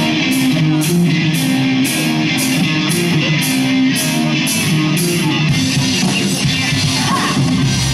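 Live rock band playing: electric guitars over a drum kit, with the cymbals keeping a steady beat of about two hits a second.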